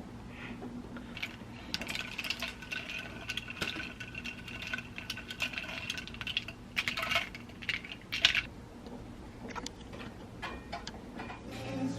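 Small hard objects clinking and clicking, a few of the knocks ringing briefly, over a steady low hum.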